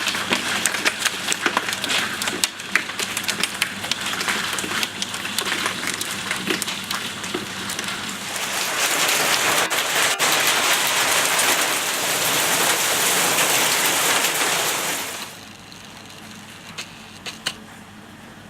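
Hail falling hard, a dense patter of sharp ticks from stones striking a surface. About halfway through it swells into a loud even hiss of heavy hail and rain. This cuts off suddenly a few seconds before the end, leaving only a few scattered ticks.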